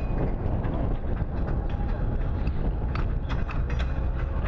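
Freight train flatcars rolling past: a steady low rumble of wheels on rail with scattered clicks and clanks, thickest about three seconds in.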